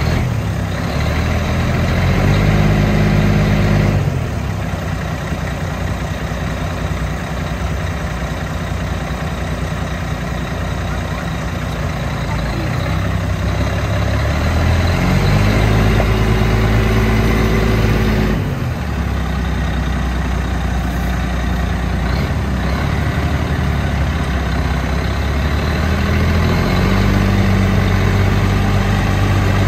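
Diesel engine of a 2002 International 8100 truck tractor running at idle and revved up three times, held at the higher speed for a few seconds and then dropped sharply back to idle; the third rise is still held at the end.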